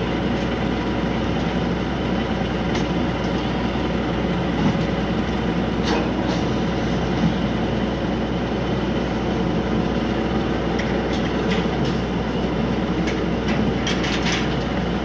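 Engine of the Ferris wheel's power unit running steadily, with a few short metallic clanks about six seconds in and near the end.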